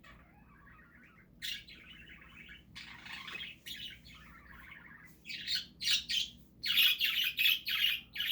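Pet budgerigars chirping and chattering, scattered and softer at first, then louder with rapid calls several a second from about five seconds in.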